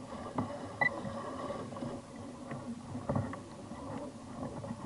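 Small waves slapping against a fishing kayak's hull, with irregular knocks and creaks from the boat and tackle and a brief high squeak about a second in.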